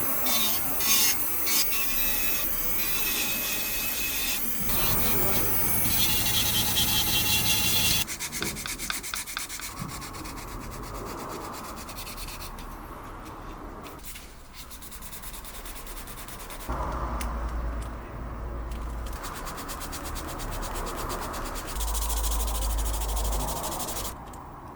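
Abrasive sanding on an airsoft pistol grip: steady rubbing strokes, loudest for the first few seconds, then going on in quieter stretches whose character changes abruptly several times.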